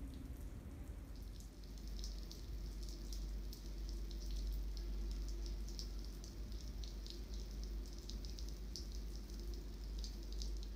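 Light rain pattering and dripping, with irregular crackling ticks, over a steady low rumble.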